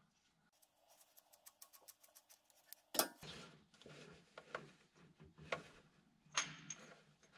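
Faint metallic clinks and ticks of a hand rummaging among wiring and metal parts under a tractor's cab floor, feeling for a dropped socket. A run of quick light ticks comes first, then a sharper click about three seconds in, then a few scattered clinks.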